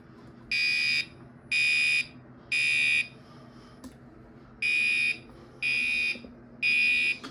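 Gentex Commander 3 fire alarm horn sounding the temporal-three evacuation pattern: three half-second horn blasts about a second apart, a pause of about a second and a half, then three more.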